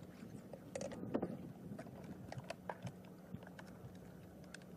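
A leopard's claws scratching and knocking on the bark of a dead tree trunk as it leaps up and climbs, loudest about a second in, with scattered sharp clicks after, over a steady low hum.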